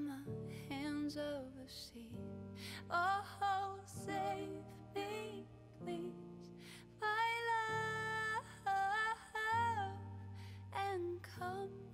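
Slow ballad with a sung melody of long held notes with a wavering vibrato, over soft sustained chords that change every couple of seconds.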